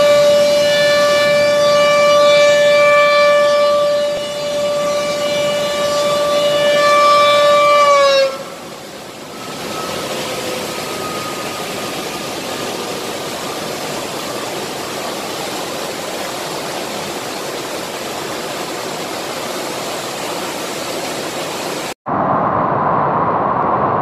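Dam warning siren holding one steady tone, then sliding down in pitch and dying away about eight seconds in, over the steady rush of floodwater pouring through the dam's spillway gates. About two seconds before the end, a cut brings a different, brighter rushing noise.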